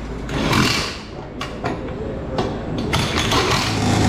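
Shop work on a race car's body panels: a scraping rush about half a second in, then several sharp clicks and knocks. A power tool's steady hum starts right at the end.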